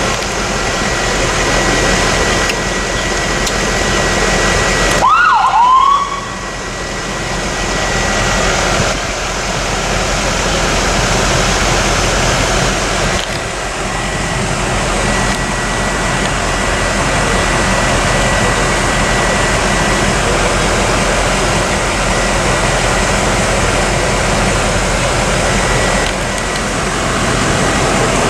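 Steady, loud rushing noise in the cab of a 2008 Ford F-450 ambulance. About five seconds in, a short electronic siren chirp sounds once: a quick tone that falls and then rises.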